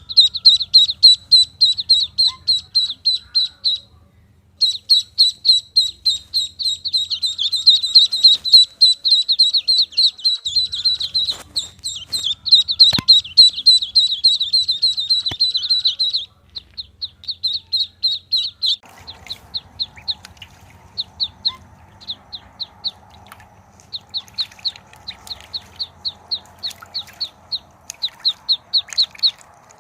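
Duckling peeping: a fast run of short, high peeps, about four or five a second. The peeps are dense and loud through the first half, then sparser and softer from about sixteen seconds in.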